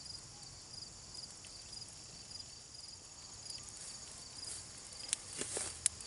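Insects chirping over and over in short, high pulses. A few sharp clicks and rustles near the end come from handling on the stick rack.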